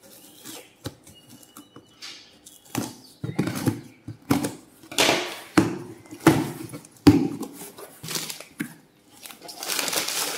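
Cardboard delivery box being opened by hand: packing tape is cut and pulled away in a string of short rips and scrapes against the cardboard, about one every half second to second. Near the end, plastic packaging crinkles as it is handled inside the box.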